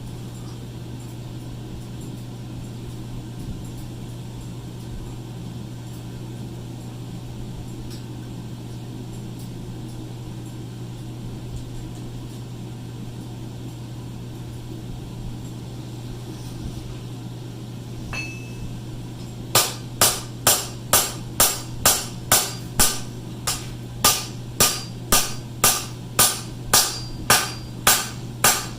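A steady low hum, then, about twenty seconds in, a run of ringing rounding-hammer blows on steel at the anvil, about two a second.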